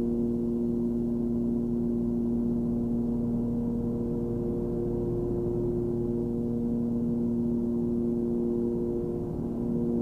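Cessna 340's twin piston engines and propellers droning steadily in cruise, heard from inside the cabin as an even hum with a few fixed tones.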